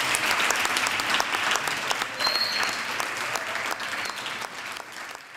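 Audience applauding, the clapping thinning and fading out toward the end, with a brief high tone about two seconds in.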